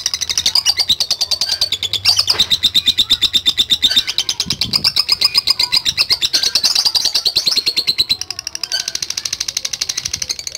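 Lovebird singing its long 'ngekek' song: an unbroken, very rapid chattering trill of high notes that runs on for many seconds, with a brief dip about eight seconds in.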